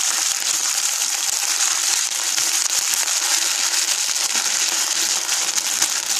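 Sliced onions and ginger-garlic paste frying in hot oil in a kadhai: a steady, hissing sizzle full of fine crackles.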